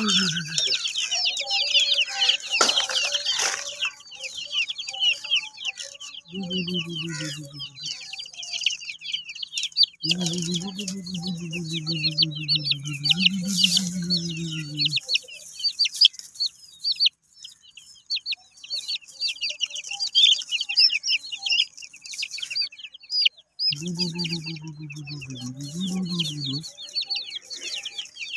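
Baby chicks peeping continuously in rapid, high-pitched cheeps, easing off for a while past the middle. A lower, drawn-out call sounds three times over the peeping.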